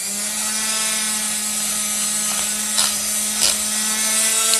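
Berman spindle milkshake mixer running at full speed, its motor whining at one steady pitch as the spindle whips vanilla milkshake with Nutella in a steel cup. Two short knocks come around the middle.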